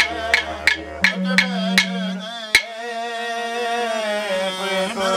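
Men's manikay song from Arnhem Land: a male voice sings over clapsticks struck about three times a second, with a yidaki drone underneath that stops about a second in. The clapsticks stop about halfway through, and the voice goes on alone, holding long notes.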